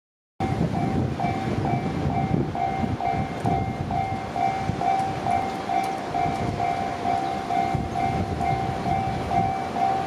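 Japanese level-crossing warning bell ringing steadily at about two strokes a second, the signal that a train is approaching. A low rumble runs beneath it.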